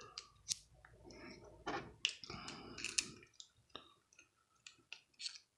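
Parts of a spinning reel clicking and scraping as the reel is handled and fitted back together: a run of sharp, irregular small clicks with some brief rubbing in the first half.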